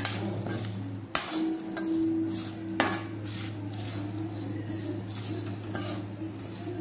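Steel spoon stirring whole spices dry-roasting in a metal kadhai: the seeds and bay leaves scrape across the pan, with a few sharp clinks of spoon on metal. A steady low hum runs underneath.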